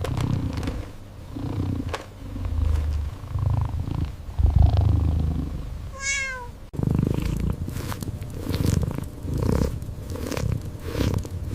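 Domestic cat purring in uneven low rumbling pulses, with a short pitched call about six seconds in.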